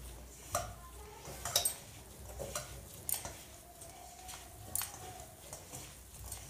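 Leftover cooked rice being mashed by hand in a stainless steel bowl: soft squishing and scraping, with irregular light clinks as the bangles and fingers knock against the steel.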